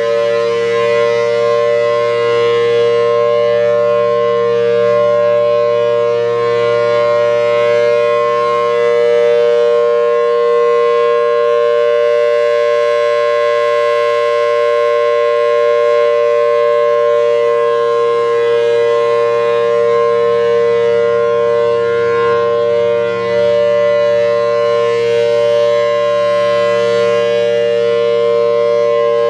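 Federal Signal Thunderbolt 1000T civil-defense siren, with a 4/5-port chopper and C-series blower, sounding a steady full-alert signal: two held pitches a major third apart, staying level at full speed.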